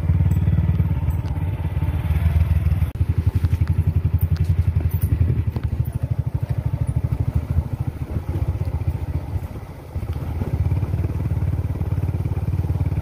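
Motorcycle engine running under way, a steady low pulsing drone, easing off briefly about ten seconds in.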